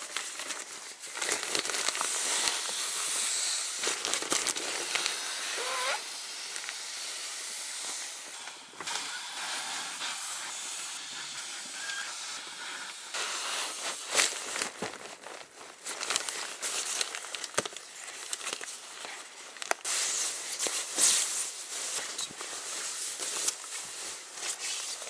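Nylon sleeping pad, stuff sack and bedding rustling and crinkling as they are handled. The noise is fairly even for the first few seconds, then breaks into sharper crinkles and brief bursts.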